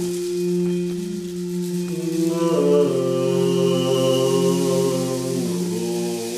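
Layered sustained drone of a low, held chanted tone with shifting overtones, with a singing bowl ringing faintly above it. The upper tones slide to a new pitch about two and a half seconds in and again near the end.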